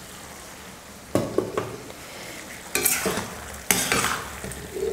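Mutton liver pieces stirred with a steel spatula in a stainless steel kadai: several scraping strokes against the pan from about a second in, over a steady sizzle of the liver simmering in its own released juices.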